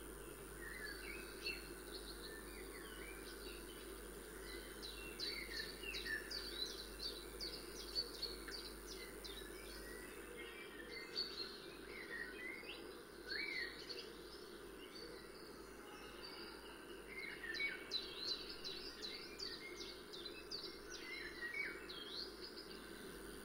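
Several birds chirping, many short calls coming in clusters, over a steady low hum and a faint high whine.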